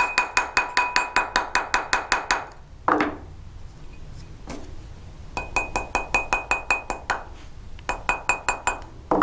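Plastic mallet tapping a silver ring on a steel ring mandrel, about seven light strikes a second, each with a short metallic ring. The first run stops after about two and a half seconds. After a pause with a couple of single knocks, two more quick runs follow. The tapping work-hardens the ring so it won't distort again.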